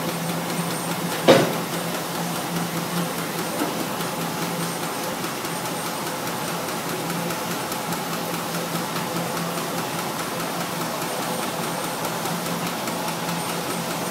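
Steam traction engine driving a sawmill through a long flat belt: the belt and mill machinery running steadily with a low hum, and one sharp clank about a second in.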